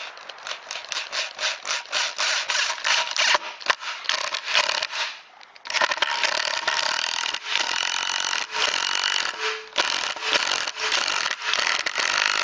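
A power driver sinking a ceramic-coated high-carbon steel decking screw into timber that has not been pre-drilled: a dense, rasping run of rapid strokes as the screw bites into the wood, with a brief pause about five seconds in.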